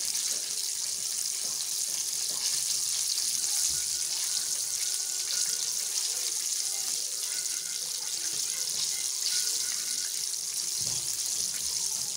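Chicken pieces deep-frying in a pan of hot oil: a steady, high sizzle of bubbling fat.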